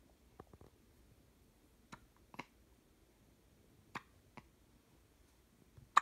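Baby hiccuping: short, sharp hiccups about every two seconds, most followed closely by a smaller second catch.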